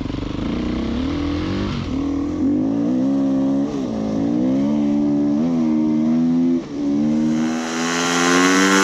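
Enduro motorcycle engine running hard on a dirt road, its pitch climbing and dropping back several times as it revs.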